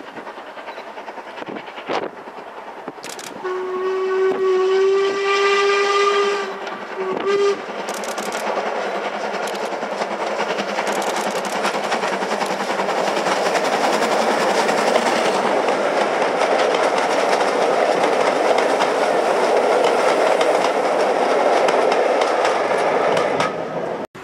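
A steam locomotive sounds its whistle, one long blast of about three seconds followed by a short second toot. The passenger train then runs past, its working and wheel noise growing steadily louder before cutting off suddenly near the end.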